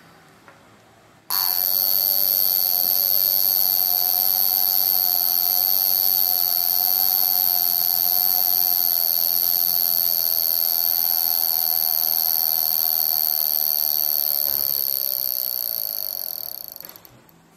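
Vulcain Cricket mechanical alarm wristwatch ringing: its hammer buzzes against the caseback membrane in a loud, steady, high-pitched drone. It starts about a second in and fades out near the end.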